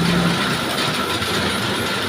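Sawmill running and sawing timber: a loud, steady mechanical din with a steady high whine over it.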